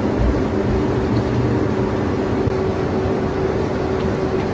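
Steady mechanical hum with one constant low tone and a rumble beneath it, unchanging throughout.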